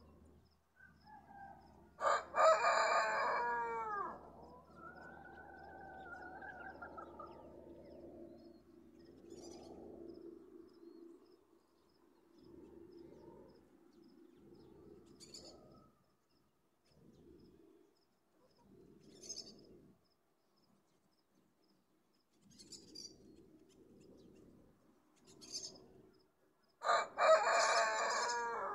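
Rooster crowing twice: a loud crow of about two seconds a couple of seconds in, and another near the end. Quieter fowl calls and brief small-bird chirps come in between.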